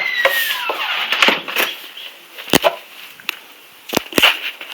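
Several sharp, irregularly spaced hammer blows on a brake rotor mounted backwards to drive the wheel hub assembly off, with a brief falling squeal near the start.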